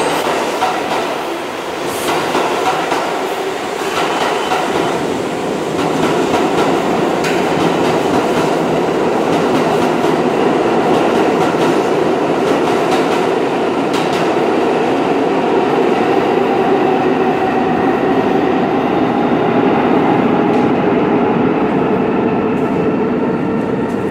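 New York City subway 1 train running along the platform track, its steel wheels clattering over the rail joints under a steady motor whine, with a few sharp clacks. It grows louder a few seconds in and stays loud.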